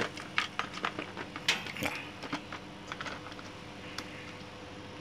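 Plastic housing parts of a toy transformation belt being handled and fitted together: scattered light clicks and knocks of plastic, busier in the first couple of seconds and then sparse.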